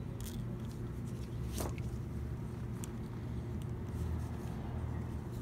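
Rubber rear-window gasket being pried and tucked by gloved hands with a plastic trim tool: soft handling noise with a few sharp clicks, over a steady low background hum.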